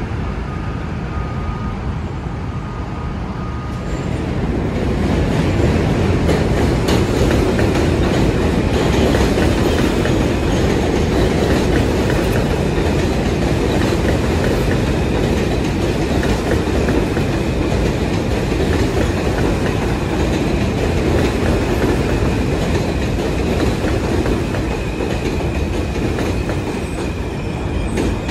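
New York City subway train running past on elevated bridge track, its wheels rumbling over the rails. The train noise swells about four seconds in, with a faint high steady whine under it through the middle and later part.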